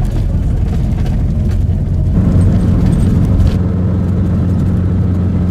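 Engine and road noise heard from inside a moving vehicle: a steady low hum under a hiss. About three and a half seconds in, the hiss drops away and the hum carries on.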